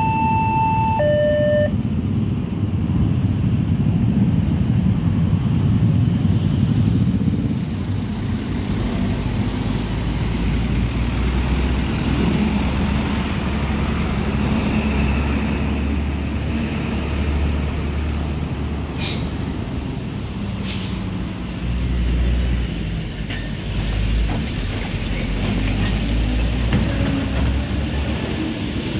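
Road traffic crossing the railway: truck, car and motorbike engines run past with a heavy low rumble. The level crossing's two-tone electronic alarm sounds at the very start and stops about a second and a half in. Two brief sharp sounds come about two-thirds of the way through.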